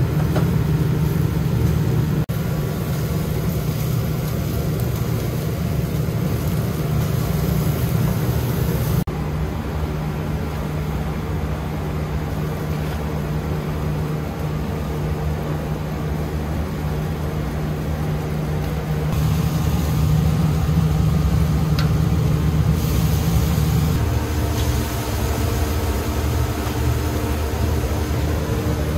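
Steady low mechanical hum of a running fan motor by the charcoal grill, with a few faint clicks.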